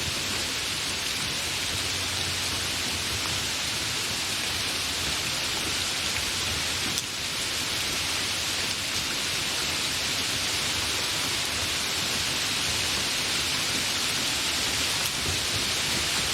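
Steady light rain falling: an even, continuous hiss of rainfall.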